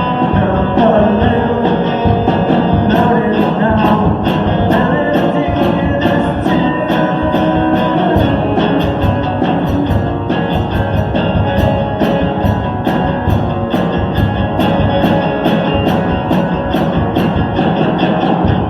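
A live guitar song played with a steady beat, with some singing.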